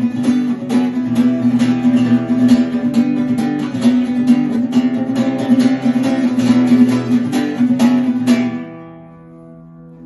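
Acoustic guitar played with percussive strumming, sharp strikes at a brisk steady rhythm over the chord. About eight and a half seconds in the strikes stop and the last chord rings out and fades.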